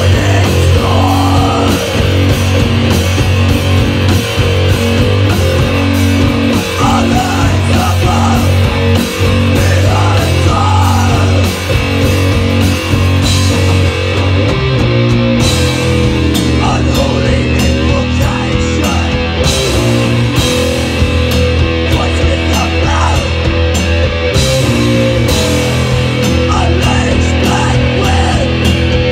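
Metal band playing live: distorted electric guitars, bass and a drum kit, loud and dense, with the riff changing about halfway through.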